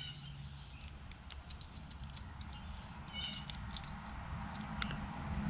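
Light metallic clicks and scrapes of a key on its ring being worked in and out of a car glove box lock cylinder, its wafer pins catching, with a brief high squeak a little after three seconds in.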